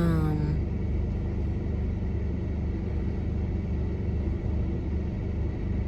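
Steady low rumble with a faint hiss above it, unchanging throughout, after the end of a spoken word at the very start.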